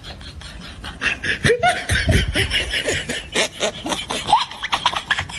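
Laughter: a run of short, quick bursts of laughing that gets louder about a second in.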